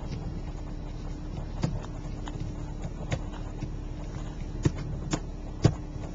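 Steady low rumble of a car's engine and road noise heard inside the cabin, with a faint hum, broken by five sharp clicks at uneven intervals, the loudest near the end.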